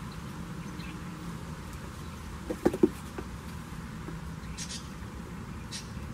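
Goat kids' hooves knocking, a quick cluster of four or five sharp knocks about two and a half seconds in as they scramble on a man's back and the wooden board under him, over a steady low buzzing hum.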